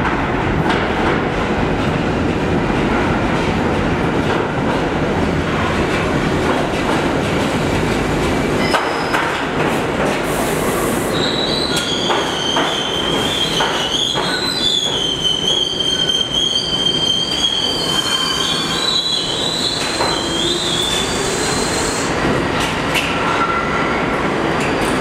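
R68 subway train rolling into a station with a dense rumble. About halfway through, its wheels set up a high, wavering squeal as it brakes, and this runs for several seconds before the train comes to a stop.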